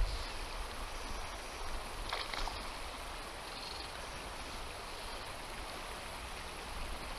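Steady rush of a shallow river running over stones, with a low rumble underneath and a brief sharp noise about two seconds in.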